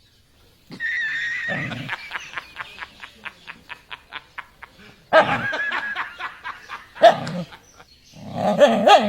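Animal vocal sounds: a pitched call, then a run of quick, evenly spaced pulses, then several louder wavering calls.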